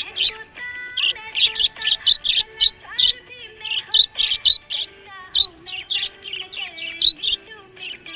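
Small pet parrots chirping busily: a run of short, high chirps several a second, over lower, steadier warbling tones.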